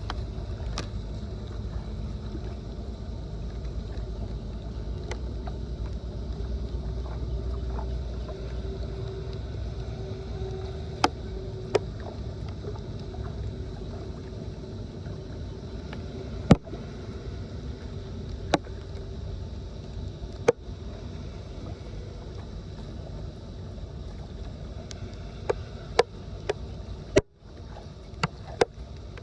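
Flood water running through a clogged drain or culvert with a steady low rumble, and a dozen or so sharp clicks and knocks scattered through it. The sound cuts out for a moment near the end.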